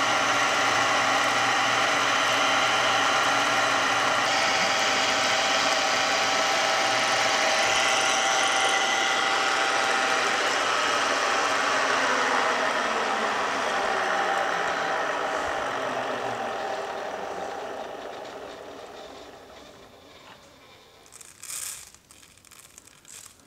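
Milling machine running steadily while cutting a helical groove in a brass shaft, its spindle and gear train driving the dividing head. It is then switched off and runs down, its pitch falling and its sound fading out. A few light knocks come near the end.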